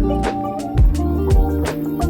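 Background music with a steady drum beat and bass under sustained pitched instruments.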